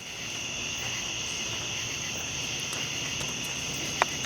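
Steady, high-pitched chorus of crickets chirring, with one short sharp sound near the end.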